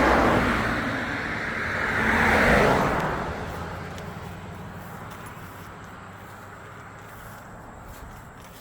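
Road traffic: cars passing, loudest at the start and again about two and a half seconds in, then fading to a faint steady hum.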